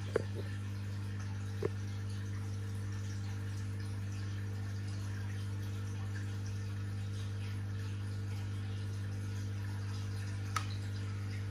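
Aquarium equipment humming steadily under light trickling and splashing water at the tank's surface. Three brief clicks: one right at the start, one about a second and a half in, one near the end.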